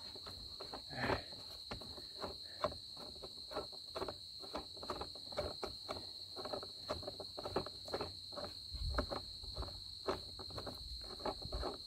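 Trolling motor mount's clamp screw being turned by hand against a wooden 2x4, giving a run of irregular small clicks and creaks over a steady high-pitched whine.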